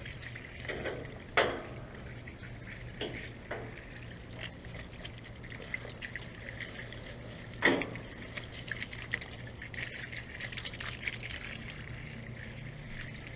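Water spraying, splashing and dripping on the coils and casing of a York central air conditioner's outdoor unit as it is rinsed clean. There are two sharper knocks, about a second and a half in and near eight seconds.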